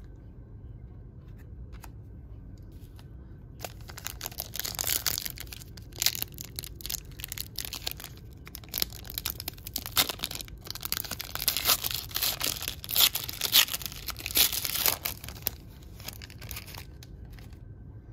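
Foil wrapper of a 2022 Upper Deck AEW trading-card pack being torn open and crinkled by hand. It starts about four seconds in and keeps crackling until shortly before the end.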